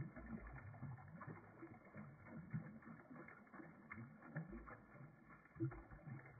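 Near silence, with faint, dull, irregular ticks scattered through it.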